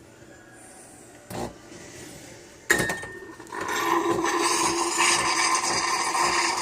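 Nespresso Gran Lattissima capsule machine: a soft knock, then a sharp click about two and a half seconds in, and a second later the pump starts and runs with a loud steady hum as it brews.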